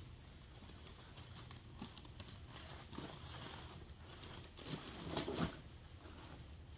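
Faint rustling and crackling of dry fallen leaves as someone moves about and handles them, louder for a moment about five seconds in.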